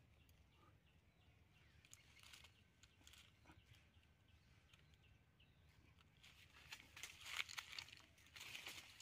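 Dry fallen leaves rustling and crackling underfoot, faint at first and louder with quick crunching steps from about six and a half seconds in.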